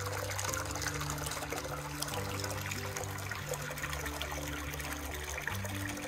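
Water pouring from a stone spout into an open-air hot-spring bath, a steady splashing trickle.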